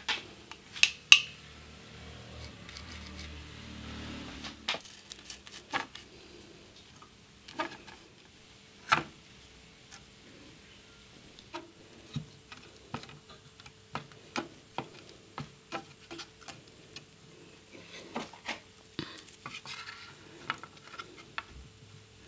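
Scattered light taps, clicks and knocks of hands working on a radio, dabbing contact adhesive on and pressing the antenna down and lifting it again. A low hum sounds for the first few seconds and stops abruptly.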